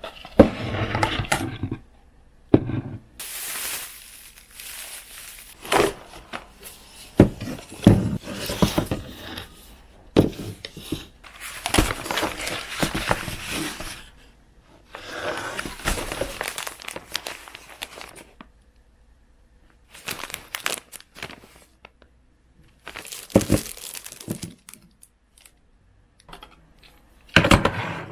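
Packaging and bags rustling and crinkling as shop items are taken out and handled, in bursts with short pauses. There are a few sharp knocks as things are set down on a wooden table.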